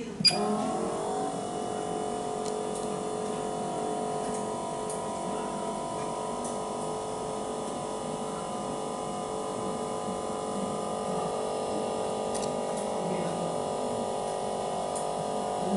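A pulse hot-bar flex press machine switches on with a sharp click and then hums steadily, its tones settling in pitch over the first second. A few light clicks from handling sound over the hum.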